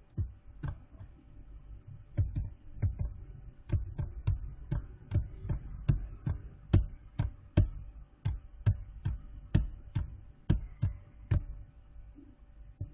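Computer mouse clicking over and over, a sharp click about every half second, stopping shortly before the end.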